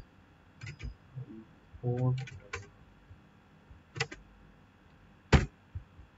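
Sparse computer keyboard keystrokes: a handful of separate sharp clicks in small groups, the loudest a single keystroke near the end.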